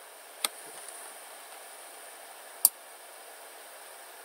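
Two computer mouse clicks, a faint one about half a second in and a sharper one a little past the middle, over a steady faint hiss.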